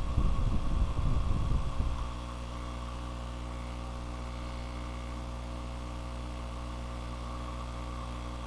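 Steady electrical hum made of a low buzz with several steady tones above it, from the recording setup. During the first two seconds, irregular low rumbling bumps on the microphone sit over it.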